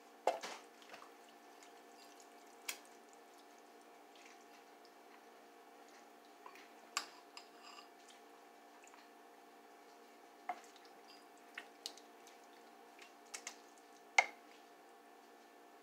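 Green silicone serving spoon scooping wet spaghetti casserole out of a slow cooker into a bowl: scattered soft taps, scrapes and wet plops, about a dozen in all, the loudest right at the start and near the end.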